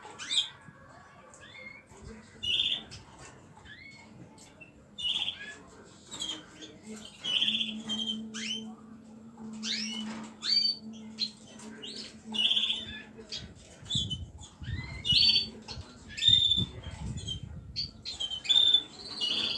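Small pet birds calling: short, high chirps repeated every two to three seconds, mixed with sharp clicking calls.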